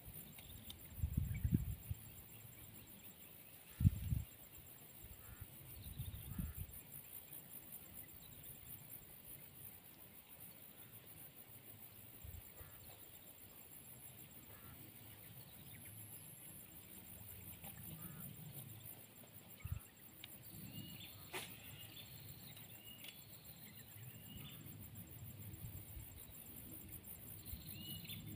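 Rural swamp ambience: insects buzzing steadily at a high pitch, with a few short bird chirps about three-quarters of the way through and again near the end. A few low rumbles in the first few seconds.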